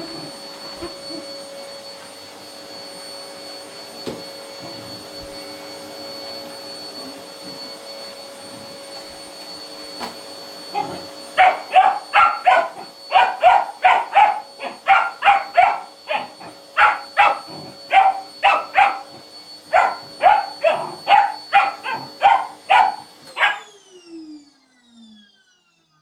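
Vacuum cleaner running steadily while a border collie puppy barks loudly and repeatedly at it, about two barks a second, starting about halfway through. Near the end the vacuum is switched off and its motor winds down to a stop.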